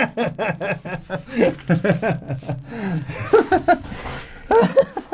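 Men laughing in short, quick chuckles after a joke, with a stretch of scraping hiss about three seconds in as they shift in the crawl.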